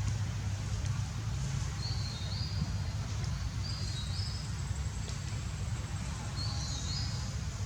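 A bird chirping in short two-note phrases, three times, over a steady low rumble.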